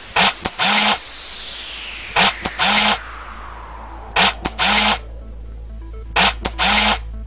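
Electronic background music: a figure of three quick hits repeating every two seconds over a steady low drone, with thin rising whooshes up high.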